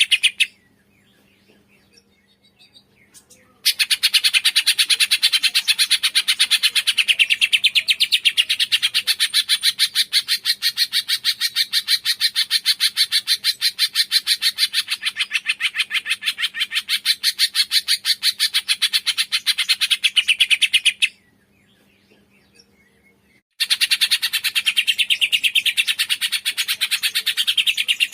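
Cungkok songbird singing long runs of rapid, evenly repeated chirps, many to the second. The song starts a few seconds in, breaks off for a couple of seconds late on, then resumes.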